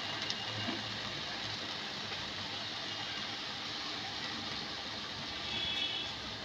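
Spinach, eggplant and potato frying in a pan with a steady soft sizzle over a low hum, swelling briefly a little before the end.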